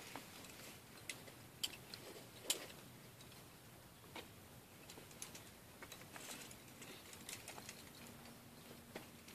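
Faint, irregular small clicks and light knocks, the clearest about two and a half seconds in and a cluster of them near the end.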